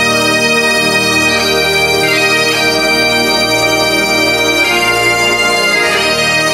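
Bagpipe music: a melody played over steady, continuous drones.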